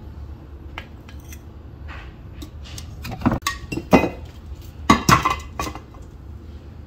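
Ceramic clinks and knocks as a plastic scoop works ground coffee out of a ceramic jar and the jar's ceramic lid is set back on, with the loudest knocks between about three and five and a half seconds in.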